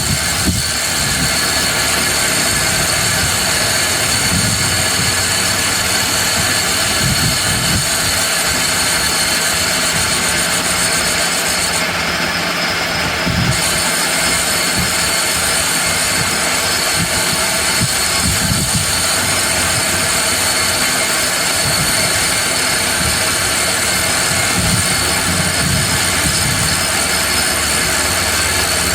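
Lathe running with a tool working a spinning metal workpiece: a steady mechanical noise with several high-pitched whining tones on top, which drop out briefly about halfway through.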